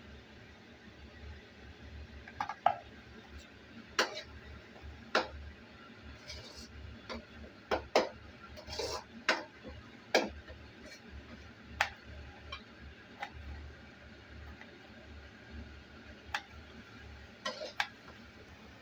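Knife cutting tomatoes into small pieces: irregular sharp taps of the blade, a dozen or so spread unevenly, some with a brief ring, over a steady low hum.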